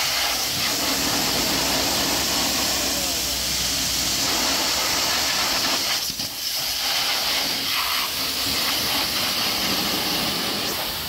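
High-pressure washer jet hissing steadily as it blasts mud out of a car's rear wheel arch and off the tyre, with a brief dip about six seconds in.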